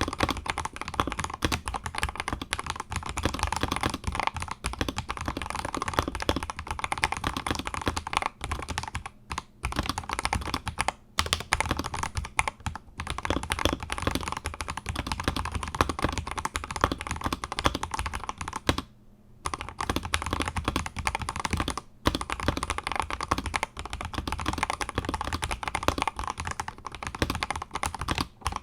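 Fast continuous typing on an Akko 5075S mechanical keyboard with Akko Jelly White linear switches lubed with Krytox 205g0, mounted on a polycarbonate plate: a dense patter of keystrokes. The typing breaks off briefly a few times, about 9, 11, 19 and 22 seconds in.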